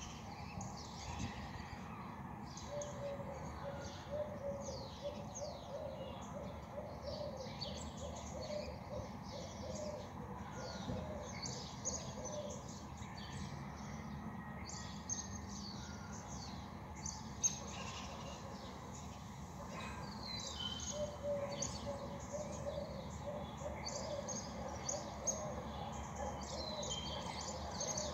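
Dawn chorus of small birds: many short, high chirps overlapping without pause over a steady low background rumble. A lower run of repeated notes joins in about three seconds in and again after about twenty seconds.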